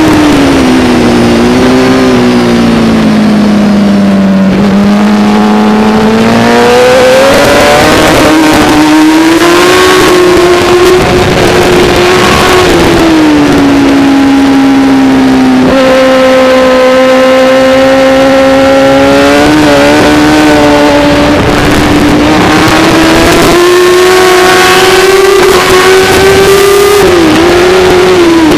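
Racing motorcycle engine at high revs, heard from onboard over wind rush. The pitch falls over the first few seconds as the bike slows for a corner, then climbs again, with several sudden drops and climbs later on as gears change and the bike brakes and accelerates through the lap.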